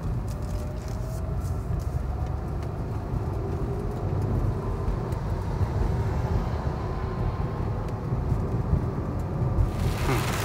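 Low, steady rumble inside a Lada Vesta's cabin as the car drives through a thunderstorm, with scattered ticks of raindrops on the body. Near the end a heavy downpour suddenly starts drumming on the roof.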